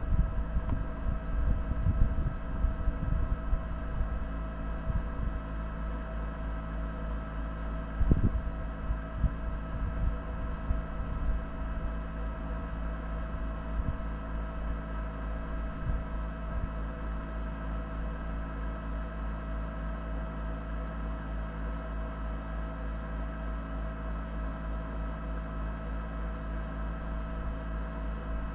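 An off-road 4x4's engine running at a steady speed, with a low rumble. Irregular knocks and jolts come in the first few seconds, and one sharp knock comes about eight seconds in.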